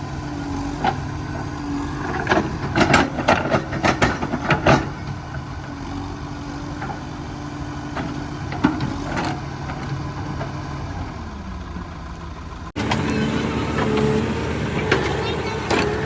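Diesel engine of heavy machinery running steadily, with a series of sharp knocks or clanks about three to five seconds in. Near the end the sound switches abruptly to a higher-pitched engine sound.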